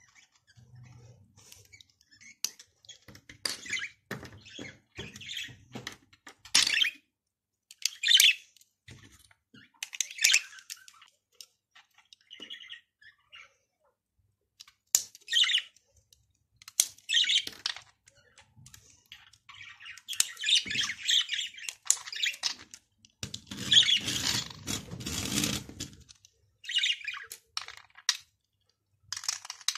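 Lego pieces handled and pressed together close to the microphone: a rubber tyre worked onto a plastic wheel rim and wheels clicked onto the car, an irregular series of short clicks, scrapes and rubbing noises.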